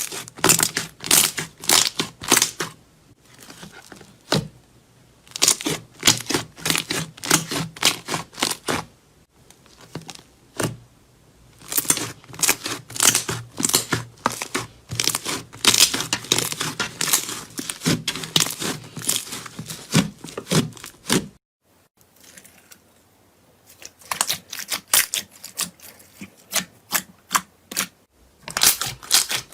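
Slime being squeezed and pressed by hand, giving bursts of dense crackling clicks and pops with short pauses between them.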